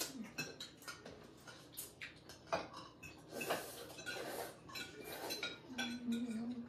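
Forks and spoons clinking and scraping on ceramic dinner plates and bowls as several people eat, in scattered irregular clicks.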